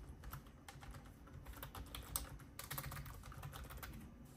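Typing on a computer keyboard: scattered keystrokes at first, then a quick run of them from about a second and a half in until near the end.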